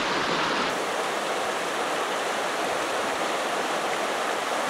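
Creek water rushing steadily over a shallow rocky riffle, changing suddenly to a brighter hiss just under a second in.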